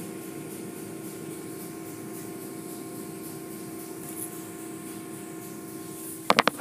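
Steady mechanical hum of automatic car wash machinery (pumps and motors running through the wash cycle), muffled by a glass viewing window. A few sharp clicks come in near the end.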